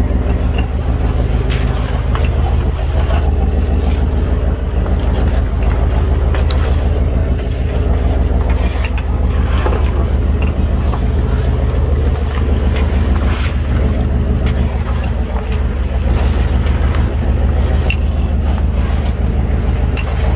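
A fishing boat's engine running steadily, a constant low hum, with scattered light clicks and knocks on top.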